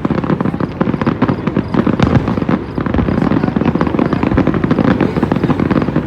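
Fireworks going off in quick succession: a dense, continuous run of sharp pops and bangs.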